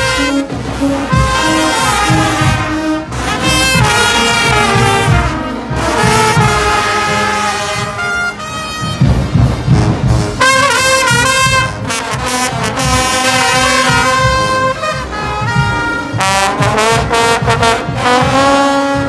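Guggenmusik carnival brass band playing while marching: trumpets and trombones sound a loud tune over a steady beat of bass drums and percussion.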